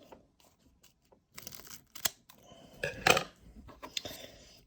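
Scissors snipping open a foil Pokémon booster pack, with the wrapper crinkling and a few sharp clicks, the loudest about three seconds in.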